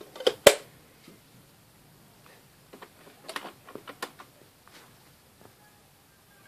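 Sharp plastic clicks and knocks as a CD is set into and pressed onto the spindle of a portable CD boombox's open disc compartment. The loudest knock comes about half a second in, and a cluster of quicker clicks follows around three to four seconds in. A faint steady whine comes in near the end.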